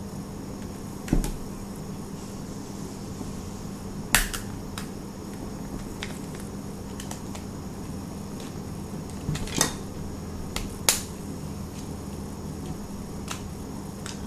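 Sharp plastic clicks and snaps as a pry pick is worked along the edge of a phone's plastic housing, releasing its clips: four loud ones spread out, with lighter ticks between, over a steady low hum.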